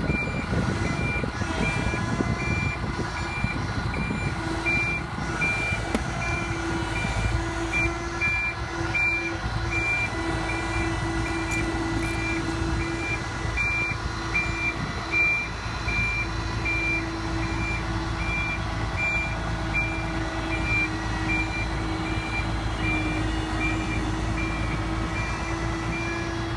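Backup alarm of an IHI IC70 crawler carrier beeping in a steady, evenly spaced rhythm as the machine reverses up a lowboy trailer's ramps, over the steady hum of its engine running.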